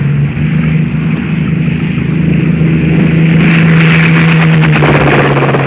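A loud engine running steadily on a low, even note, with a spell of sharp crackling and popping over it from a little past halfway.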